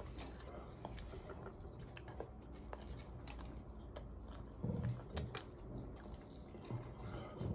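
A man chewing a mouthful of cheese pide close to the microphone, with soft mouth clicks and a louder bout of chewing about five seconds in.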